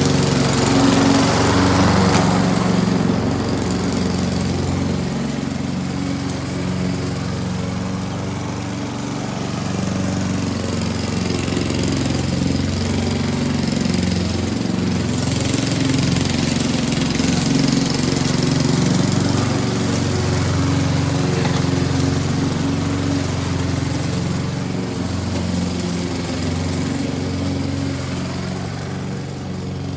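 Walk-behind gas lawn mower running steadily while cutting grass. Its engine hum grows louder and fainter as the mower moves nearer and farther, and it eases off near the end.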